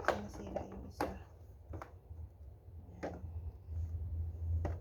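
Several light knocks about a second apart, the kind made by handling objects on a surface, over a low steady hum.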